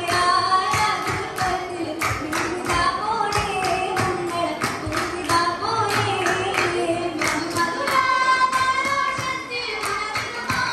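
Oppana: a group of girls singing a Mappila song together, with sharp hand claps in time with the song.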